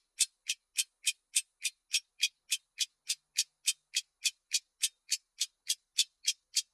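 Clock ticking: sharp, even ticks at a quick steady pace of about three and a half a second.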